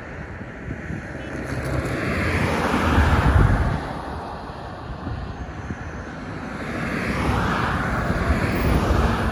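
Cars passing on a highway: tyre and engine noise swells and fades twice, loudest about three seconds in and again near the end, over wind rumbling on the microphone.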